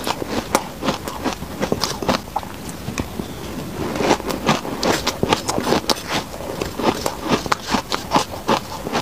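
Close-miked crunching and chewing of powder-coated shaved ice, a rapid run of crisp crackles, with a metal spoon scraping and scooping through the ice in the bowl near the start and near the end.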